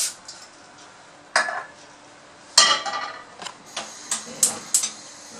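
Metal frying pans clattering as they are set down on a gas stove's grates, twice. Then a run of short sharp clicks, about three a second, from the gas burner's spark igniter as its knob is turned.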